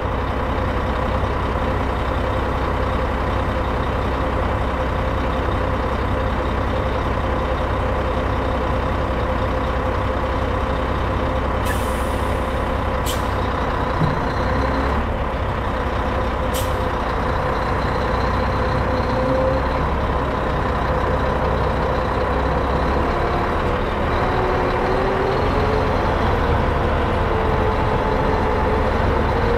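Scania R420 truck's inline-six diesel running steadily at low revs, with a few short hisses from the air system about halfway through. Near the end the engine note shifts and rises slightly as the rig starts to move.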